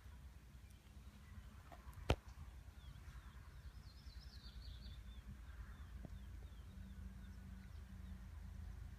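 Quiet outdoor ambience: a steady low rumble, faint series of high bird chirps from about three seconds in, and one sharp click about two seconds in.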